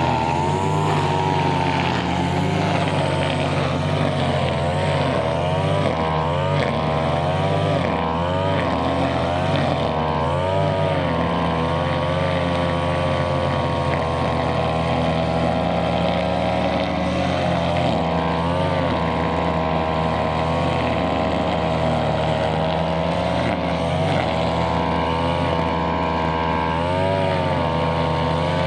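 Brushcutter engine running at high speed while cutting grass, its pitch repeatedly dipping and recovering as the blade takes the load of the grass.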